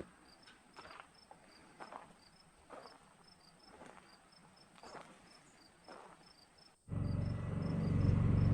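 Crickets chirping steadily, a few chirps a second, with soft footsteps under them. About seven seconds in, a loud low hum starts abruptly and carries on.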